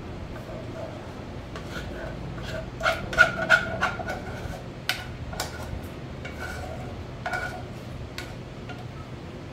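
A utensil scraping and tapping against a mixing bowl as cornbread batter is scraped out into a baking pan: a run of sharp clicks and knocks with a short ringing tone, loudest about three seconds in and thinning out after about seven seconds.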